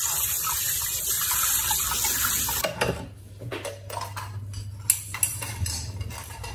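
Kitchen tap running into a sink while raw pork is rinsed clean after a salt-water soak; the water shuts off a little under halfway through. Light knocks and clatter of the meat and dishes being handled in the sink follow.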